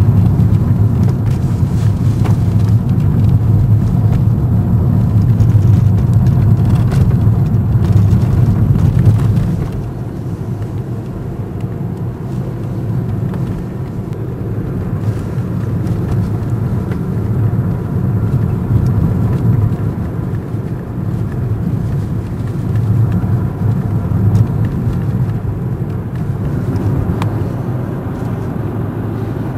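Car interior noise on a snowy road: a steady low rumble of engine and tyres that drops noticeably quieter about nine and a half seconds in and carries on at the lower level.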